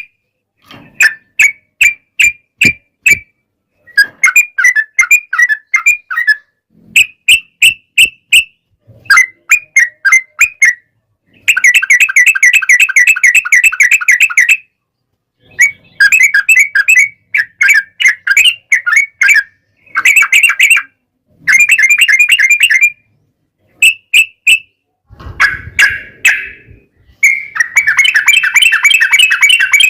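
Yellow-vented bulbuls (trucukan) giving fast chattering, bubbling call phrases in bursts with short gaps, several running on for about three seconds. This is the 'ropel' rapid rolling call of birds squaring up to each other, used as a lure to make other bulbuls answer.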